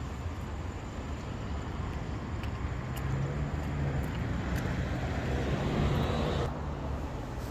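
A motor vehicle running on the street, its engine hum and tyre noise growing louder from about three seconds in, then dropping off abruptly near the end, over a steady low outdoor rumble.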